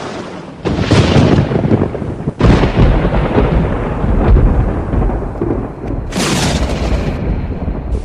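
Thunder crashing and rumbling in loud waves. A new crash breaks in abruptly about half a second in, another about two and a half seconds in, and a hissing burst comes near six seconds.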